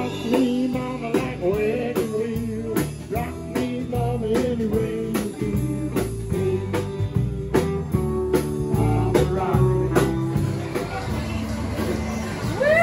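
Live band playing: electric guitar lines over bass guitar and a drum kit keeping a steady beat.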